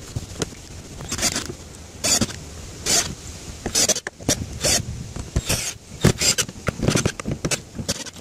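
Cordless drill driving screws through the metal flange of an RV roof vent, in short runs about a second apart at first, then in quicker, more irregular runs with clicks in between.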